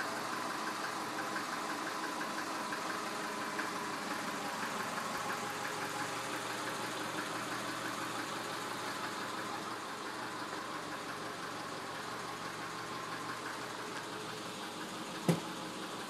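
1999 Subaru Forester's 2.5-litre EJ25 flat-four running steadily with a rapid, even knocking: piston slap at about 180,000 miles. A single sharp click sounds about fifteen seconds in.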